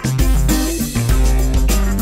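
Music with a moving bass line and a regular drum beat.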